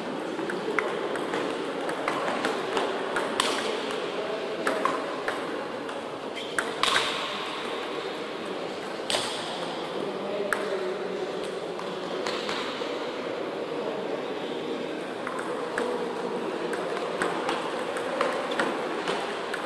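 Celluloid-type table tennis ball clicking sharply off bats and bouncing on the table in short rallies, with gaps between points, over a steady background murmur of a large hall.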